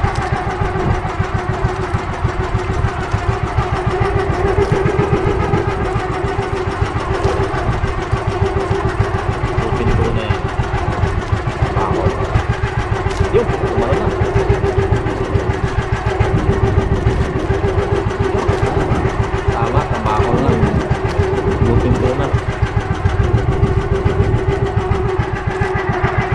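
Outrigger boat's engine running steadily, with a rapid, even firing beat and a constant hum.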